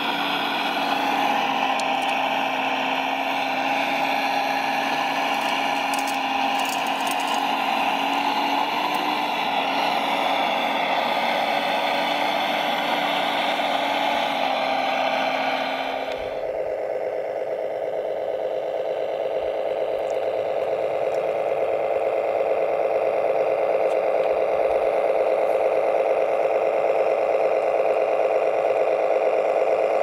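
Radio-controlled model construction machinery running: a steady engine-like drone mixed with whining motor tones, changing abruptly about halfway through to a lower, steadier engine drone.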